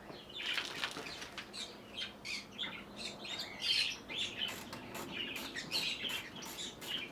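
Small birds chirping and twittering in quick, irregular short calls, with a few faint clicks among them.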